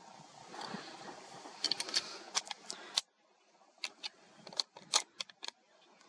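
Irregular sharp clicks and ticks, a dozen or so, over a faint rustling background that drops away abruptly about halfway through.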